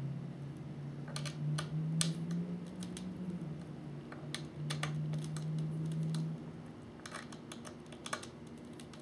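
Small irregular clicks and ticks of a hex key turning the screws of a model submarine's hatch, a couple of turns at a time, tightening it down evenly. A low steady hum sounds under it until about two-thirds of the way through.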